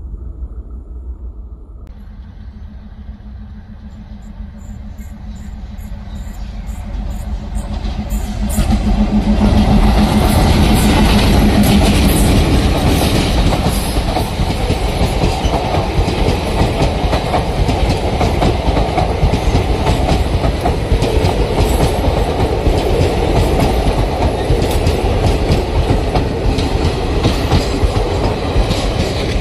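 Twin ALCO diesel locomotives approach with a steady engine note growing louder and pass about ten seconds in. The coaches follow, their wheels clattering steadily over the rail joints.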